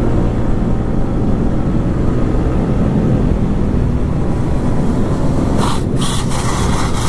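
Yamaha 155 cc single-cylinder sport bike running at speed, heard from the rider's own bike over steady wind and road noise. About five and a half seconds in, a louder, brighter hiss joins in for about two seconds while the bike is leaned hard into a bend.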